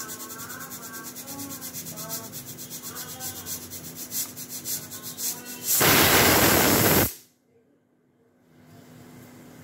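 Hawkins pressure cooker with the old-style whistle weight, sputtering with a rapid ticking rattle as the pressure builds. About six seconds in it lets out a loud steam whistle that lasts about a second and a half and cuts off suddenly.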